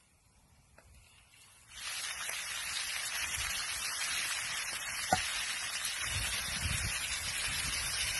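Chicken strips and sliced peppers sizzling in a hot cast-iron skillet over a wood fire, a steady hiss that starts suddenly about two seconds in. One short pop comes about halfway through.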